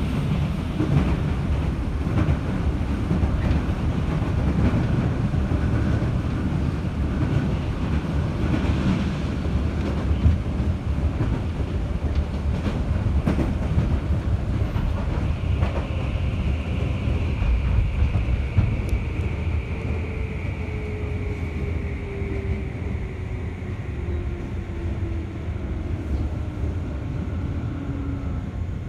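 Interior running noise of a JR 211-series electric train: a steady rumble of wheels on rail with occasional clicks over rail joints. From about halfway a whine falls slowly in pitch as the train brakes and slows on its approach to the station.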